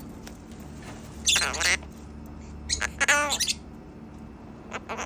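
A pet parrot gives two loud calls, about a second and three seconds in. The second call has a clearer pitched, voice-like tone.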